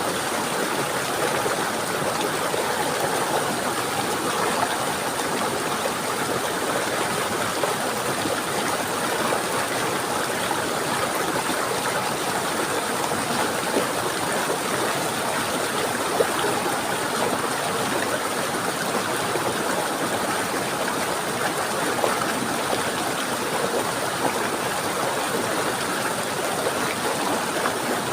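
Running water flowing steadily, an even rushing sound with no pauses or changes.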